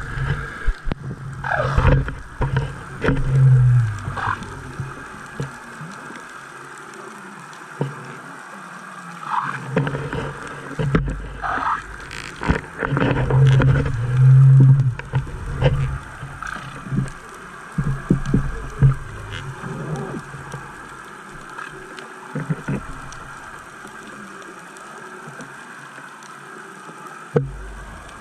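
Muffled underwater noise heard through a camera housing on the sea floor: a steady hum with low thumps and knocks that come and go, and a few short falling squeaks.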